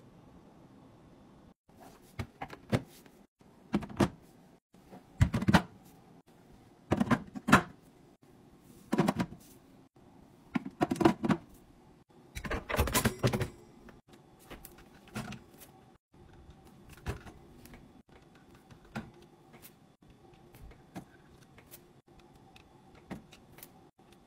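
Household items being set down and arranged in a kitchen sink cabinet: clear plastic organizer bins and spray bottles knock and clack against each other and the cabinet floor. The knocks are loudest and come about one a second through the first half, ending in a longer clattering run, then turn to lighter scattered clicks.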